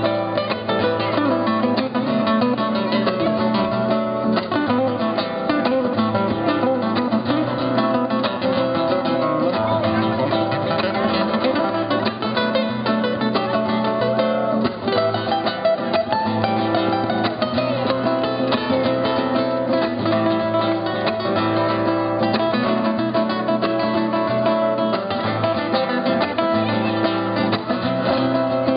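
Solo nylon-string flamenco guitar played continuously in a nuevo flamenco style, a dense stream of fingerpicked notes over a bass line.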